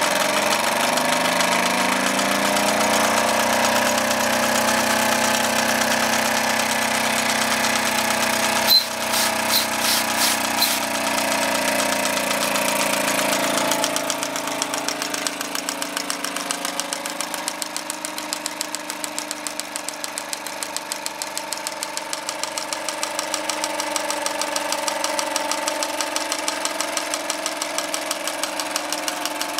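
Wilesco D20 toy steam engine running fast with an even, rapid chuffing beat, driving a belt-driven model workshop line shaft. A sharp click comes about nine seconds in, followed by a few lighter ticks, and the running sounds quieter from about fourteen seconds in.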